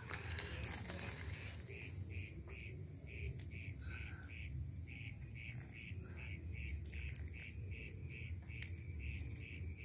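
Crickets chirping: a pulsing chirp about three times a second sets in about a second and a half in, over a steady high-pitched trill.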